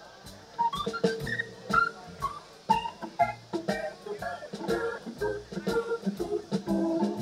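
Live blues band playing: an electric guitar melody climbing and falling over a drum kit and bass, coming in after a brief lull at the start.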